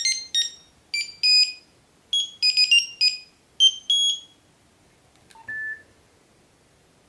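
Nokia 7110 mobile phone playing a short monophonic melody of quick beeping notes in several groups, which stops about four seconds in. About a second later comes a small click and a single short key beep.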